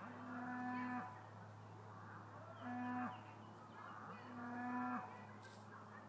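Cattle mooing three times, each moo under a second long, held at an even pitch that dips at the end.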